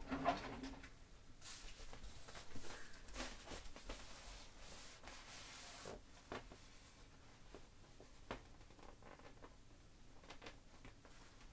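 Inflatable vinyl children's surfboard squeezed to push the air out: a hiss of escaping air for about four seconds, with the plastic rubbing, then scattered short rubs and creaks of the vinyl.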